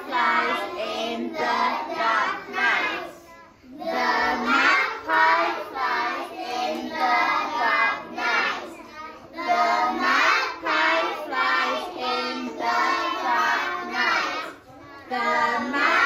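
A woman's voice repeating the same short sentence in a sing-song chant, about three times over with brief pauses between.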